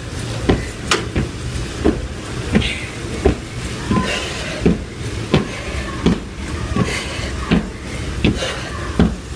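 Feet landing on a tiled floor during jumping switch lunges: a regular thud about every 0.7 seconds, over a steady low rumble.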